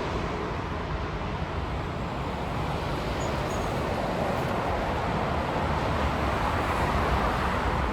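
Jet airliner engine noise: a steady low rumble without a clear whine, slowly growing a little louder towards the end.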